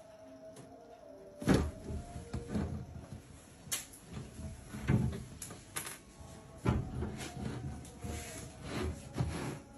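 White wire cat cage with a metal squeeze-panel frame rattling and clanking: about eight irregular knocks as the frame is pushed and pulled against the cage, the loudest a little over a second in.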